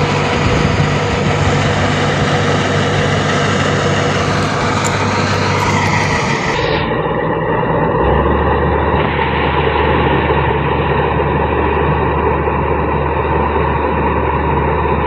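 Combine harvester running steadily, its engine and threshing machinery making a loud continuous din, with a shift in the low engine hum about halfway through.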